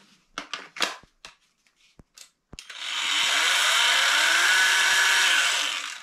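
A few sharp clicks and knocks, then a small cordless trim router's motor starts about two and a half seconds in, spins up and runs steadily for about three seconds before winding down near the end.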